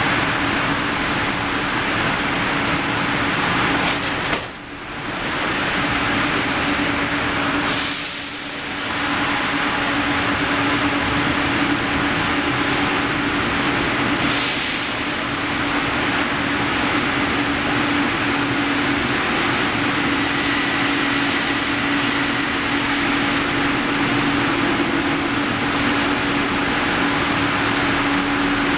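Hot-rolling mill for angle steel running: steady loud machine noise with a constant hum as a red-hot bar passes through the roll stands and along the roller table. The noise dips briefly twice early on, and there are two short high hisses.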